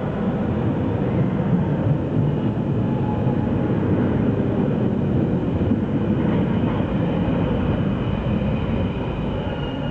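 Brussels metro Boa train pulling into an underground station: a steady, loud rumble of wheels and running gear echoing off the platform, easing slightly near the end as it slows.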